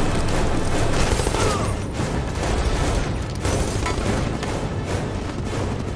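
Dramatic film score over a steady deep rumble from an aircraft in flight, with a few sharp hits.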